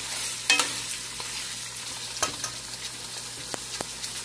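Goat-meat pieces frying with browned onions in hot oil in a non-stick pan, sizzling steadily while a steel spoon stirs them, at the bhuna stage where the meat is browned. A few sharp clicks stand out, the loudest about half a second in and another about two seconds in.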